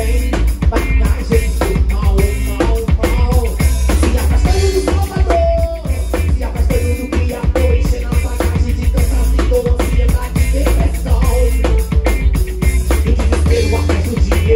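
Live band music led by a Waldman Turbo 2.0 electric bass playing a heavy groove at the bottom, with a drum kit keeping a steady beat, heard as the sound on stage.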